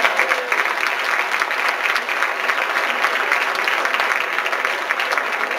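Theatre audience applauding, a dense, steady clatter of many hands clapping.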